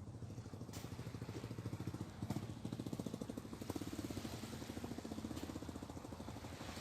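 A small engine running steadily, with a fast even pulsing beat.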